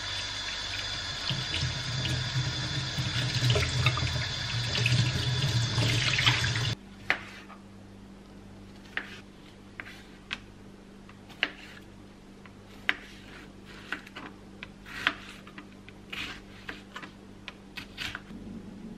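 Tap water running into a stainless-steel sink and splashing over fruit being rinsed by hand, stopping abruptly about a third of the way in. Then a ceramic knife slices through kiwi and strawberries on a cutting board: sharp separate taps, about one a second, over a faint steady hum.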